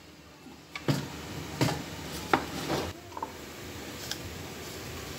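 Wooden spoon knocking and scraping against a nonstick karahi while stirring whole spices in hot oil: about four sharp knocks in the first three seconds, then only a faint steady hiss.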